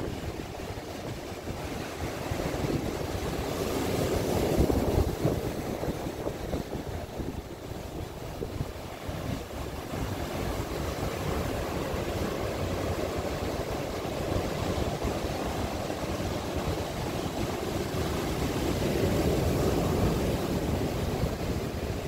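Ocean surf breaking and washing up a sandy beach: a continuous rushing of water that swells louder about four seconds in and again near the end.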